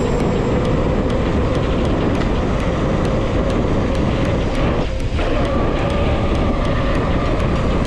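Steady rushing noise of wind and rolling on the microphone during a fast bike ride down a trail, with a faint steady whine that rises in pitch about halfway through.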